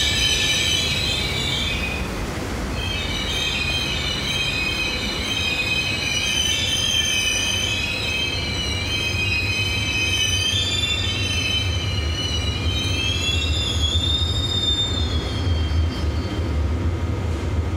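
NS Koploper (ICM) intercity train rolling slowly through a covered station under a low rumble, its wheels and brakes squealing in several wavering high tones as it slows. The squeal ends on one held tone about 15 s in as the train comes to a stop.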